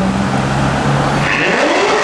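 Modified Chevrolet Corvette V8 exhaust running with a steady deep note, then revving up sharply about one and a half seconds in.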